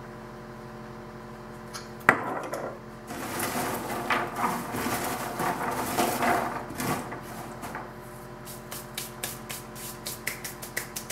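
A glass oil bottle set down on the counter with a single knock, then roasted chickpeas rattling and rolling on a metal baking sheet as they are tossed by hand. Near the end come quick light taps of hands brushing together, over a steady background hum.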